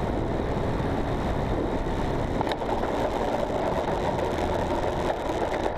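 Model airplane's nitro glow engine running, heard from on board just behind it, mixed with rushing air as the plane flies low over the grass. A single short click about two and a half seconds in.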